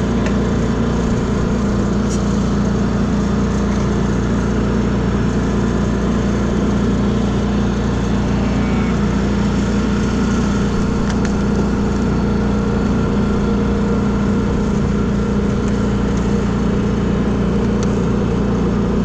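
A steady machine drone with a strong low hum, running evenly without change.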